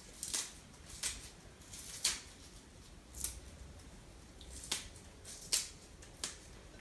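Fresh curly kale being torn apart by hand, leaves stripped off the stalks: about seven short, crisp tearing and snapping sounds, spaced roughly a second apart.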